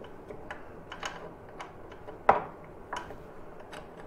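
Light metallic clicks and taps as an Allen-head bolt is worked by hand through a motorcycle's rear suspension linkage, with one sharper knock a little over two seconds in.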